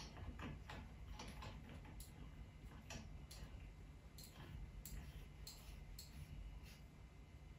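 Faint, irregular light clicks and taps from light bulbs, glass globes and their cardboard boxes being handled while the bulbs are fitted to a ceiling light fixture.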